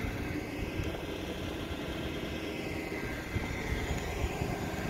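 Outdoor street background with a steady low rumble. A distant vehicle's sound swells and fades over the middle few seconds.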